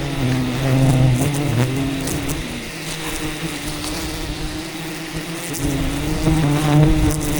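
Swarm of wild honey bees buzzing, a steady drone whose pitch shifts slightly.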